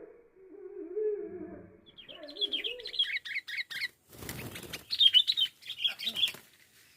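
Sooty-headed bulbul giving rapid, high chirping calls in two runs, with a burst of wing-flapping and rustling between them about four seconds in. A low wavering sound comes before the chirps.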